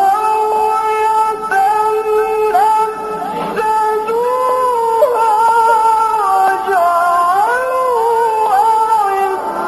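A single voice in melodic Quran recitation (tajweed), holding long high notes with ornamented turns that glide up and down between pitches.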